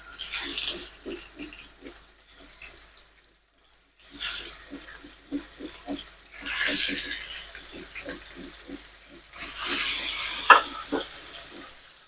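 Fish frying in hot sesame oil: bursts of sizzling hiss come and go several times, with quick bubbling pops between them.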